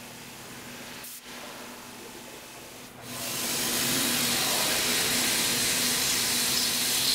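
Tormach 1100MX CNC mill cutting a delrin blank: a steady spindle hum, then about three seconds in a loud, steady hiss sets in and carries on.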